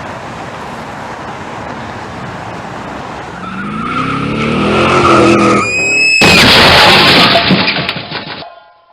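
Car crash sound effect: a car driving with steady road noise, its engine rising and tyres squealing in a skid, then a sudden loud crash about six seconds in, with crunching debris dying away near the end.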